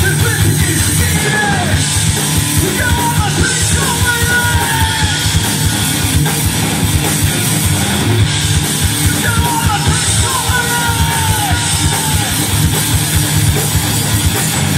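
A loud live rock band playing, with a fast pounding drum kit under dense guitar and a yelled, sung lead vocal.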